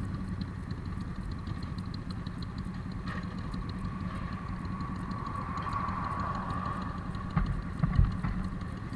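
Motorcycle engine idling steadily at a standstill, with two dull thumps near the end.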